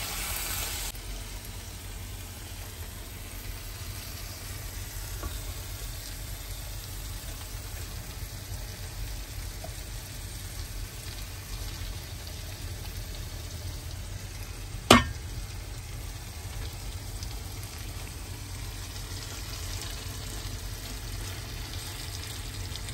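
Raw chicken drumsticks frying in a pan of curry masala whose oil has separated, being turned with a wooden spatula: a steady sizzle with stirring. There is one sharp knock about two-thirds of the way through.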